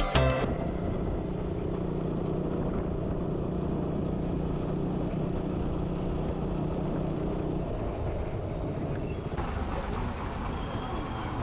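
A vehicle engine running steadily, a low even hum. Near the end the sound changes abruptly to a more open, airier background.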